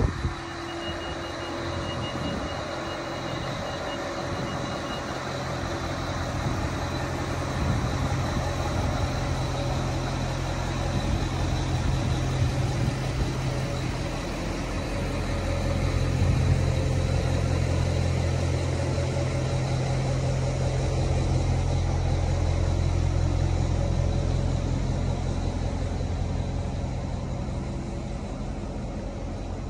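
Adelaide Metro 3000 class diesel-electric railcar's engines running steadily as the train moves slowly along the platform, with a low hum that gets louder about halfway through.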